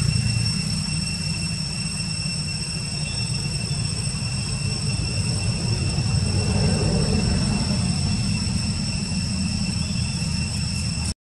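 Steady outdoor background: a low rumble with a high-pitched whine of several steady tones held above it. The sound drops out completely for a moment near the end.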